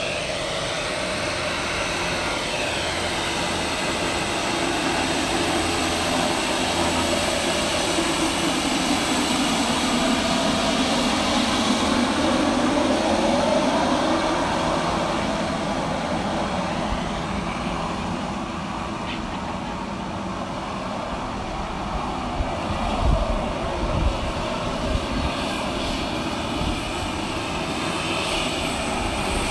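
Twin turboprop engines of a Let L-410 airliner running as it taxis past and turns onto the apron, the engine whine sweeping up and down in pitch as it passes and loudest about halfway through. A few low thumps come a little after two-thirds of the way in.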